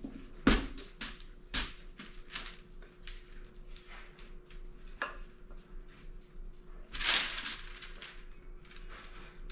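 Spatula scraping and knocking against the inside of a glass mixing bowl as thick cake batter is scraped out, with two sharp knocks in the first two seconds. There is a longer scrape about seven seconds in.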